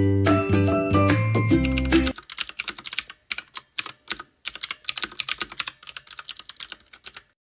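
Music that cuts off about two seconds in, followed by a typing sound effect: rapid, uneven keyboard clicks that go with text being typed onto the screen.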